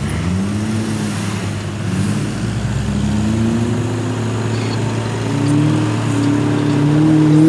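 Off-road 4x4 engine revving as it drives through soft sand. Its pitch rises and falls several times, and it grows louder toward the end as the vehicle comes closer.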